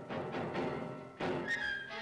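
Orchestral film music with heavy drum strokes over held tones, swelling about a second in.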